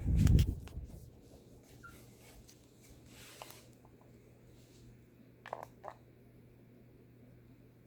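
Hampton Bay Pilot II ceiling fan running with a steady low motor hum. A brief loud low rumble comes right at the start, and two sharp clicks come about five and a half seconds in.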